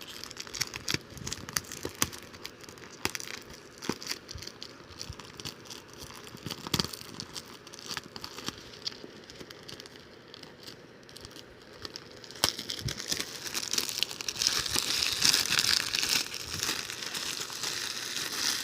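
Plastic wrapping on a DVD box set crinkling and tearing as it is pulled off, with scattered sharp clicks. The crinkling becomes denser and louder over the last six seconds or so.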